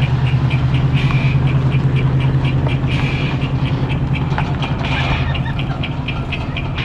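An engine running steadily, with a rapid, even high ticking over it at about four ticks a second.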